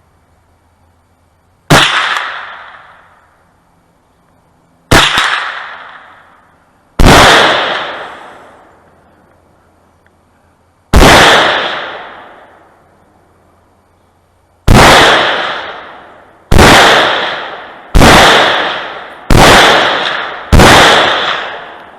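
Nine rifle shots fired at uneven intervals, each a sharp crack followed by a long echoing decay. The last five come more quickly, about one every one and a half seconds.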